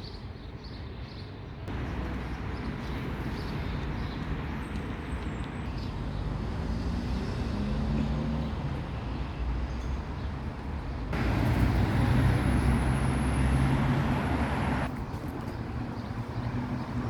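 Steady hum of road traffic, with low engine tones; it gets louder abruptly about two seconds in, louder still for a few seconds past the middle, then drops back.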